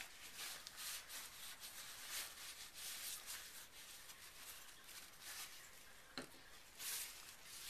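Faint rustling and rubbing of thin plastic gloves on a small plastic squeeze bottle as it is handled, with a light tap about six seconds in as it is set down on the wooden table.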